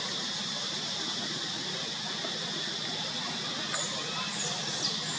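Steady outdoor forest ambience with a high, even hiss, and a few short high squeaks with one falling glide near the end.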